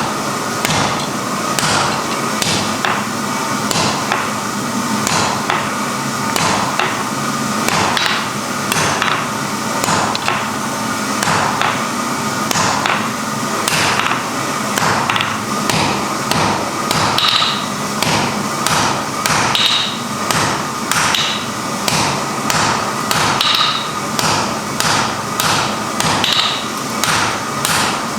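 Hand hammer blows on iron at the anvil, roughly one strike a second at an uneven pace, each with a short metallic ring. A steady hiss runs underneath.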